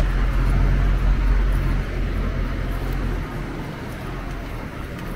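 Street traffic: a motor vehicle's engine running close by with a low hum, loudest over the first three seconds and then fading as it moves off.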